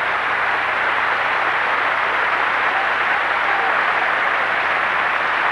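Congregation applauding steadily after a climactic line of the sermon.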